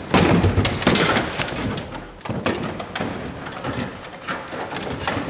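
Workshop clatter: knocks, thuds and scraping of car body parts being handled and pulled off during dismantling. It is heaviest in the first two seconds, then a quieter rattle of smaller knocks.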